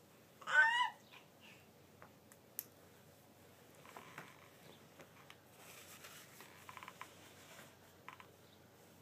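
A baby's short, high-pitched squeal with a wavering pitch about half a second in, followed by faint soft sounds of play.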